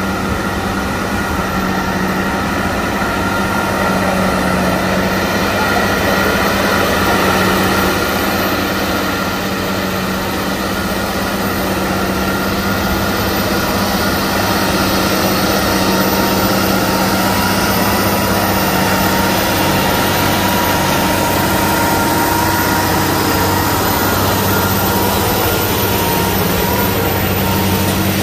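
Heavy tractor-truck engine running steadily under load while hauling up a long, steep grade, with a constant low hum.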